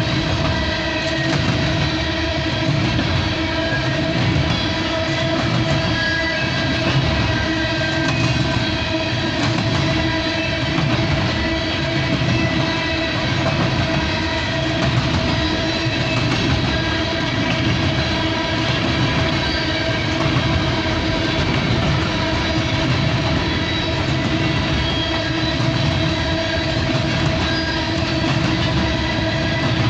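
Empty coal train cars rolling past, the wheels clattering in a steady rhythm over the rail joints, with a steady pitched ringing tone held throughout.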